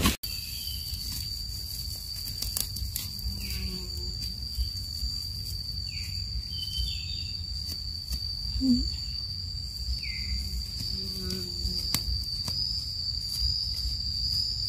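A steady, high-pitched insect drone, with faint scraping and rustling of fingers digging in soil and dry grass.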